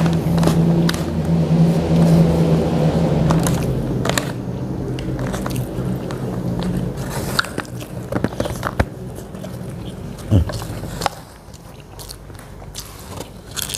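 Close-up eating: biting and chewing a rice meal with fried tempeh, with many small clicks and a louder knock about ten seconds in. A steady low hum sounds under it for the first few seconds, then fades away.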